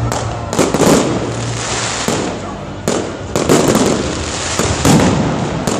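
Fireworks display: a string of sharp bangs, roughly one or two a second, over continuous crackling from the bursting shells.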